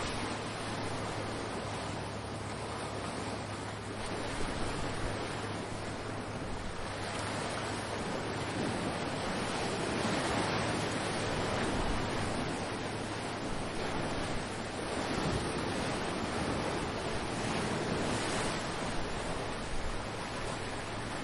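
Ocean surf: waves breaking and washing ashore in a continuous rushing hiss that swells and eases every few seconds.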